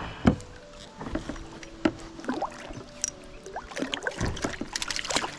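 Knocks, clicks and creaks of a fishing kayak and its gear being handled as a caught Murray cod is lowered back into the river. A loud knock comes just after the start, and there is a thud and a quick run of clicks and small splashes near the end.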